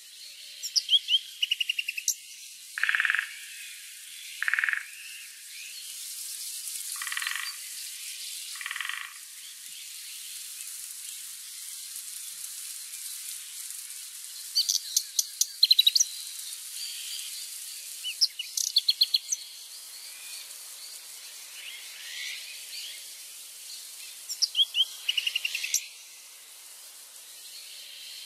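Animal calls in a natural soundscape: bursts of rapid, high chirps recurring every few seconds, four short, lower calls in the first half, and a steady high hiss underneath.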